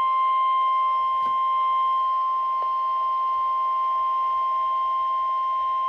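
NOAA Weather Radio 1050 Hz warning alarm tone: one steady high beep held without change, the signal that a warning message, here a tornado warning, is about to be broadcast.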